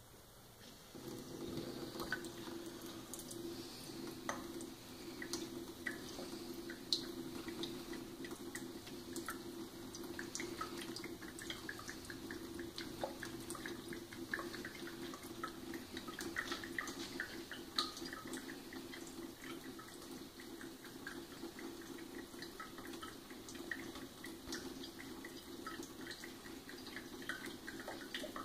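Thin stream of tap water running into a stainless steel sink, starting about a second in and then steady, with many small irregular ticks and splashes as a cat laps from the falling stream.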